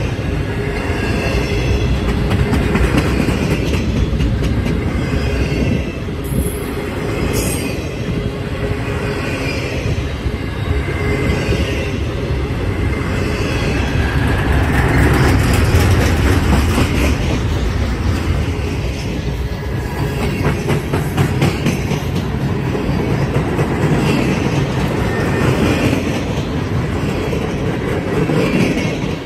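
Double-stack intermodal freight cars rolling past close by: a steady loud rumble of steel wheels on the rails, with repeated clacking as the wheels cross the rail joints.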